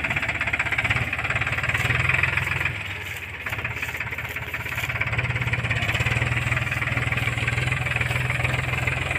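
Powertrac Euro 47 tractor's three-cylinder diesel engine running under load, a fast even chug that eases off briefly about three seconds in, then picks up again.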